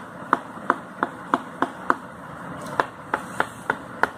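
A fork's metal tines tapping down through rolled mini pizza dough rounds onto the work surface as the dough is pricked full of holes: sharp taps at about three a second, with a short pause about two seconds in.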